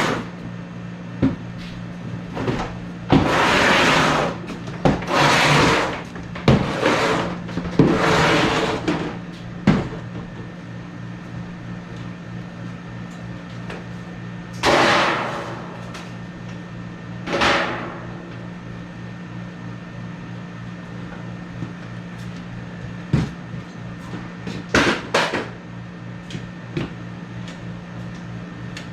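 Hand work on HVAC equipment: scattered knocks and clatter with several rushes of scraping or sliding noise about a second long, mostly in the first half, over a steady low hum.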